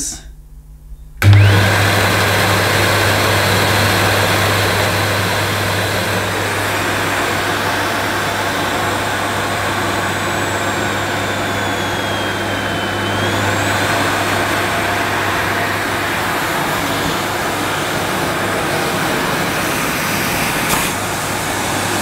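Sebo Felix Classic upright vacuum cleaner's suction motor switched on about a second in and running steadily at full power with the power head off. A faint high whistle slowly sinks in pitch and rises back about halfway through. The motor sounds fine, so the fault is not in the motor.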